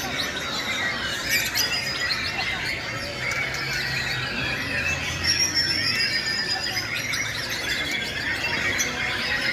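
Many white-rumped shamas singing at once: a dense chorus of overlapping whistles and chirps that never pauses.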